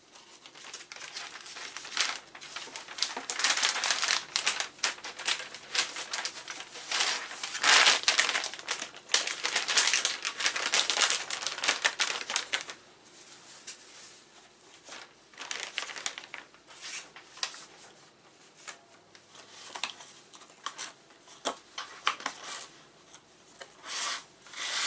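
Plastic packaging crinkling and crackling as it is handled, heaviest in the first half, then sparser rustles and a few clicks.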